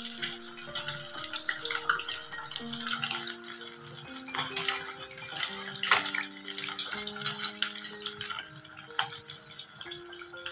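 Sabudana vadas deep-frying in hot oil in a kadhai: a steady bubbling sizzle with dense crackling. Soft background music with slow sustained notes plays underneath.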